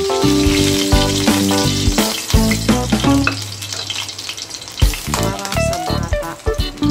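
Chicken wings sizzling as they fry in hot oil in a pan, with short clicks of metal tongs against the pan as they are turned. Background guitar music plays over the first half.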